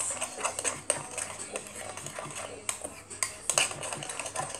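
A utensil stirring fluffy slime in a bowl, with irregular clicks and scrapes against the bowl's sides.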